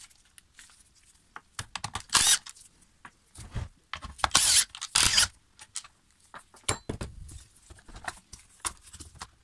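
Clicks, rattles and scrapes of a Stihl MS 391 chainsaw's plastic recoil starter cover being handled and worked loose from the saw body. There are a few louder scraping rattles about two, four and a half and five seconds in.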